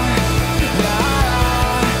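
Background rock music with a steady drum beat and sustained notes.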